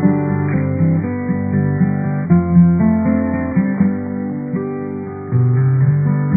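Acoustic guitar music, plucked and strummed notes, with a thin, narrow sound that lacks the high end.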